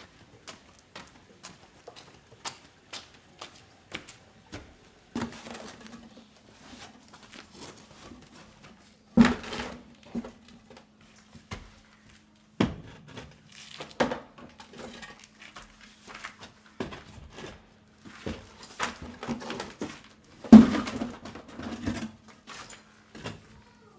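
Scattered light clicks and knocks, with two heavier knocks about nine and twenty seconds in, and a faint steady low hum from about five seconds on.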